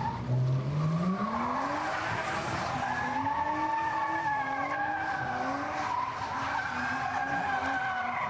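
A car engine revs up over the first second or so, then is held at high revs, its note wavering up and down. Meanwhile the car spins its rear tyres in a smoky donut on tarmac, the tyres skidding.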